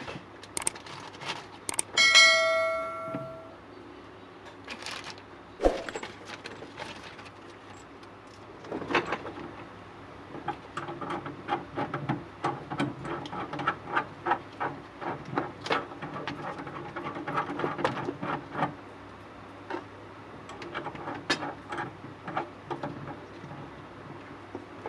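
A metal object is struck once and rings for about a second and a half. Then come many irregular light knocks and clicks, the sound of hardware and tools being handled during a fitting job.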